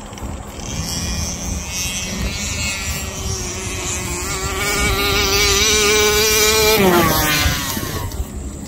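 Small two-stroke petrol engine of a 1/5-scale RC car running at high revs, its note climbing slowly in pitch and loudness over several seconds, then dropping sharply about seven seconds in.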